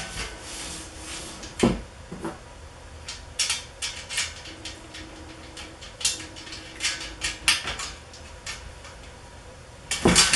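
Bolts, washers and nuts clicking and clinking as they are handled and fitted by hand to attach a washout booth foot, in scattered light knocks with a louder knock about a second and a half in.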